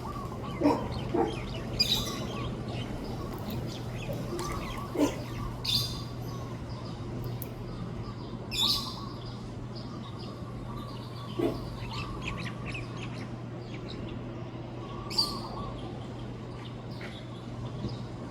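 Several birds chirping and calling outdoors at dawn: short, sharp calls every second or two, some higher and some lower-pitched, over a steady low hum.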